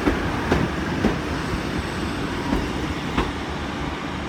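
Three-coach diesel multiple unit (Class 153 leading, Class 150 at the rear) rolling slowly into the platform under a steady low rumble, its wheels clicking over rail joints about five times, irregularly spaced, as it slows and fades a little.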